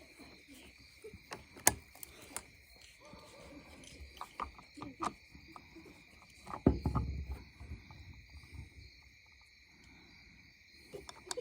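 Steady high trill of crickets, with scattered clicks and knocks of parts and tools being handled; the loudest is a thump about two-thirds of the way through.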